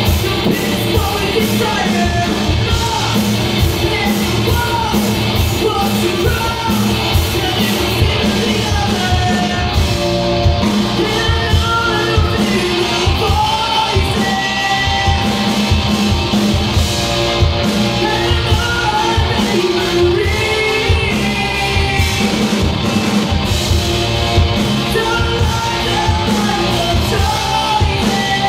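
A rock band playing live through a PA: a singer over drums, electric guitars, bass and keyboard, loud and continuous.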